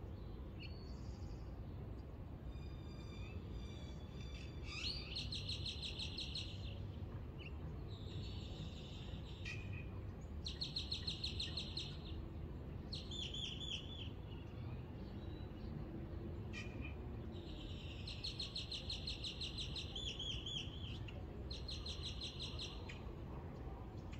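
Birds singing at dawn in short, rapid trills repeated every few seconds, some phrases ending in quick falling notes, over a steady low background rumble.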